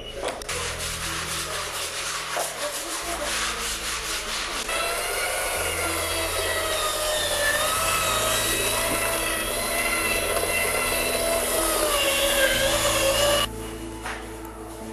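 Sandpaper rubbing on a surface being prepared for paint, in quick rasping strokes. Music plays underneath, and from about five seconds in its wavering melody rises above the rubbing.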